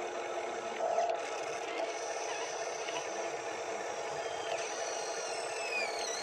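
Small electric gear motors of a radio-controlled toy excavator whirring steadily as the boom and bucket work into a sand pile. A few falling high-pitched whines come near the end.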